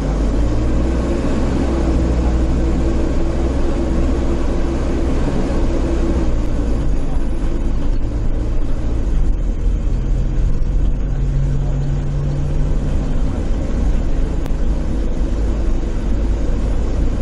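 Bus engine running and road noise heard inside the cabin while driving, the engine note shifting pitch a few times as the bus changes speed.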